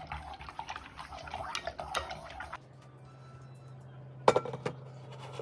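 Dishes and cutlery clinking and clattering in quick small knocks. About halfway through the sound cuts to a quieter low steady hum with two sharp clicks.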